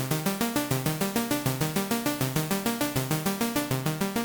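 Synthesizer arpeggio: a fast, even run of stepping notes, about eight a second, with a layer of white noise adding a hiss to every note.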